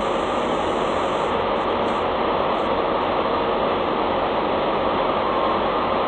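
Steady, even mechanical noise with a faint hum running through it, unbroken throughout.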